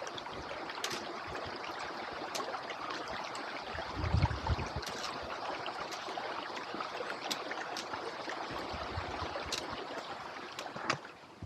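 A stream running as a steady rushing hiss, with scattered sharp clicks and a couple of low thumps; the rushing drops away near the end.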